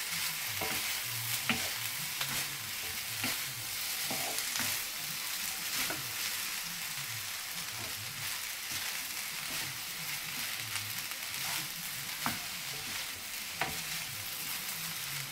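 Prawn fried rice with broccoli sizzling steadily in a non-stick frying pan while a wooden spatula stirs and turns it, with scattered knocks and scrapes of the spatula against the pan.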